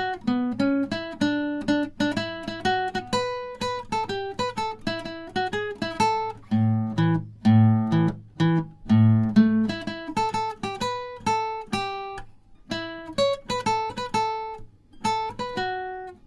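Background music: an acoustic guitar playing a melody of single plucked notes, with a few strummed chords and low bass notes about halfway through.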